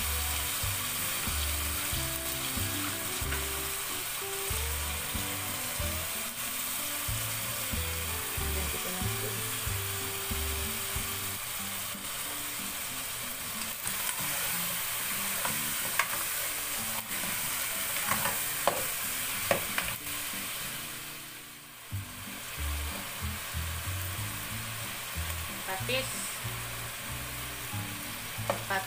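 Chicken pieces sizzling in oil in a pot on a gas stove as they are sautéed and stirred, with the utensil scraping and knocking against the pot. The sizzle dies down briefly about two-thirds of the way through, then picks up again.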